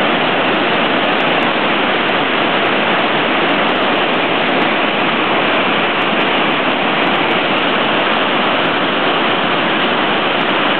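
Whitewater rapids running high, water rushing and churning over and around boulders in a loud, steady, unbroken rush.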